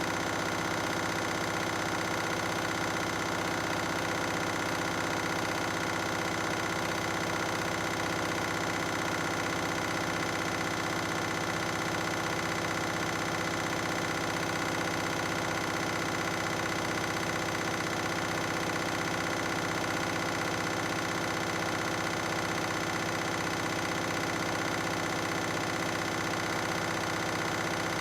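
Washing machine on a 1600 rpm spin cycle, drum and motor spinning steadily at speed: a constant machine hum with several steady tones and no change in pitch or level.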